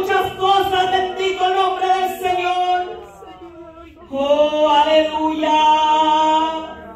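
Worship singing by male and female voices holding long, drawn-out notes in two phrases, with a short break about three seconds in.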